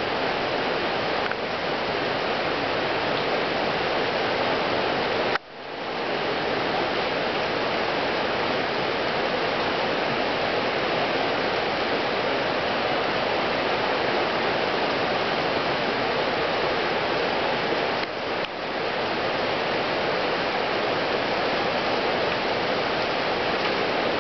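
The flood-swollen South River's current rushing steadily. The level drops briefly about five seconds in, then recovers.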